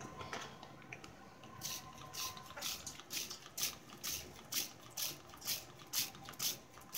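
Hand-held trigger spray bottle squirting water mist in quick repeated pumps, about two a second, starting a couple of seconds in.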